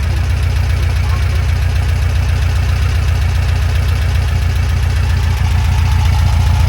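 The 1963 VW bus's air-cooled flat-four engine idling steadily with an even, pulsing beat, getting slightly louder about two thirds of the way through.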